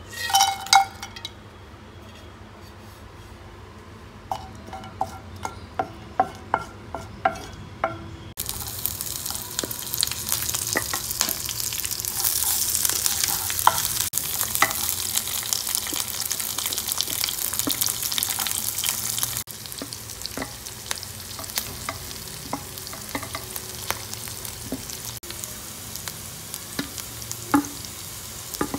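Whole spices, then green chillies and onions, going into hot oil in a nonstick frying pan. First a clatter and a run of light taps against the pan. About eight seconds in, a sizzle starts suddenly and carries on under the scrapes and knocks of a wooden spatula stirring.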